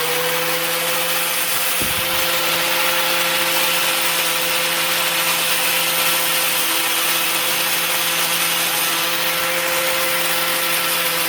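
Small electric power tool with a wire brush running at steady speed, scrubbing the dirty copper contacts of an ignition switch clean: a steady motor hum over a rasping hiss.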